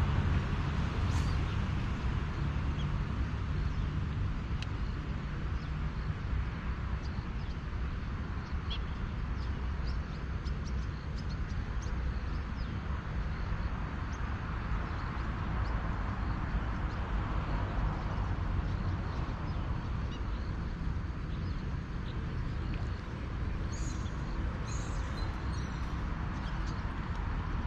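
Steady low rumble of distant city traffic, with a few faint bird chirps scattered through.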